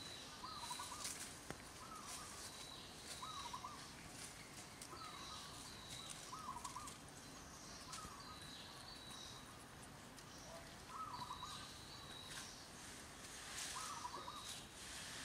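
Birds calling: a short warbling phrase repeated every second or two, with a thin high note recurring between the phrases.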